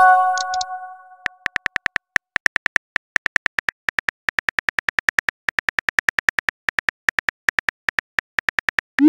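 A short multi-note message chime rings and fades over about a second, then rapid phone-keyboard tapping clicks run steadily, about five a second, as a text message is typed. Near the end a quick rising swoosh of a message being sent begins.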